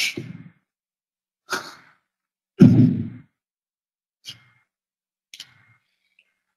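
A man sighing and breathing close to a clip-on lapel microphone: five short breathy sounds, the loudest and longest about two and a half seconds in.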